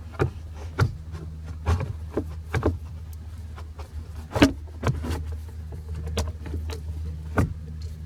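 Plastic HVAC duct being worked into place under a truck's dash: irregular plastic knocks and clicks, the loudest about four and a half seconds in, over a steady low hum.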